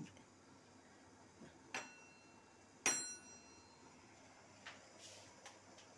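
A spoon clinking twice against a bowl, about a second apart, while spooning in corn flour; the second, louder clink rings briefly like metal.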